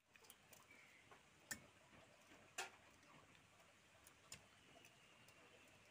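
Near silence with three faint clicks spread through a few seconds: fried fish pieces being set and knocked against an aluminium pot.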